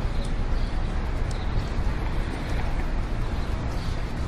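City street ambience: a steady low rumble of traffic with an even wash of street noise.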